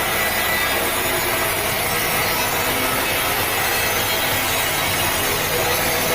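Sawmill saw cutting lengthwise through a teak log: steady, unbroken sawing noise.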